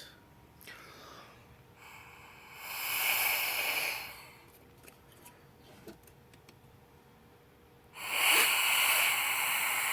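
Air blown hard through a thin fridge water hose into a port of an intake manifold, two long hissing blows, to test the tumble-flap seals for leaks by looking for bubbles.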